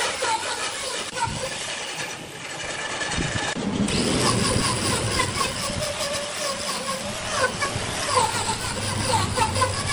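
Electric angle grinder with an abrasive disc running against wood, sanding and shaping a carved wooden vase rim. It grows louder and brighter about four seconds in.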